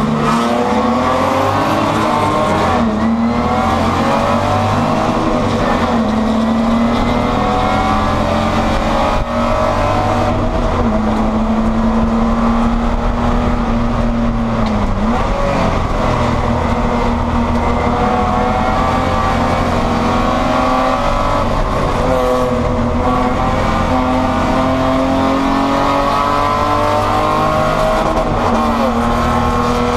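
Spec E30 BMW race car's inline-six engine heard from inside the cabin, pulling hard up through the revs, with the pitch dropping back at each gear change several times before climbing again.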